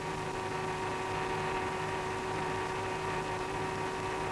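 Steady electrical hum with faint hiss, a constant background of several steady tones with no events.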